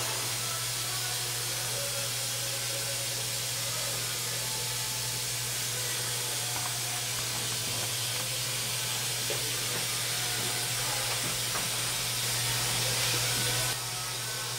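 Dental suction running with a steady hiss over a low hum. The hiss swells near the end, then drops suddenly.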